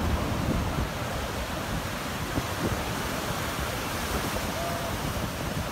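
Heavy surf breaking and washing in as a steady rush of water, with wind buffeting the microphone in a low rumble.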